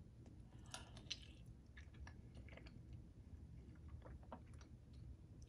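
Faint scattered clicks and soft sticky sounds of a metal spoon scooping porridge and flaxseed sauce against a ceramic bowl, a few slightly louder taps about a second in.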